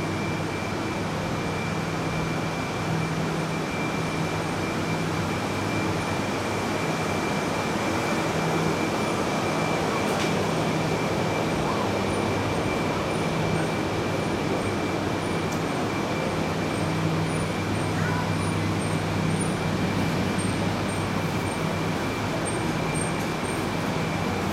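Steady hum of a Shinkansen train standing at the platform, its on-board equipment running with a constant high whine over a low drone, amid station platform noise.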